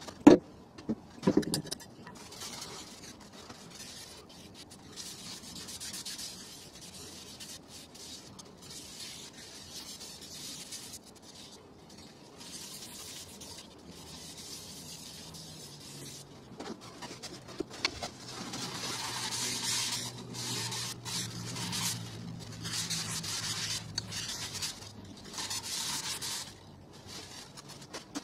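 A paper towel rubbing oil into the inside of a turned wooden bowl, a soft rubbing hiss in stretches that grows louder in the second half. A couple of sharp knocks sound at the start.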